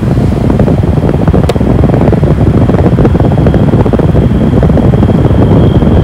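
Loud wind buffeting the microphone over the rumble of a car moving along a road. There is one sharp click about a second and a half in, and a thin, steady high whine comes in near the end.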